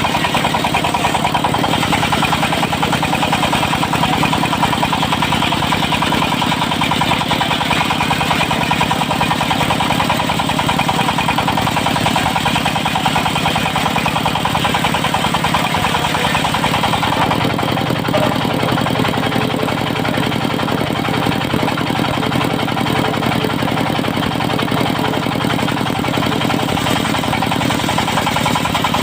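Diesel engine of a portable circular-saw sawmill running steadily with an even, fast firing beat. About two-thirds of the way through, the higher part of the sound drops back while the engine keeps running.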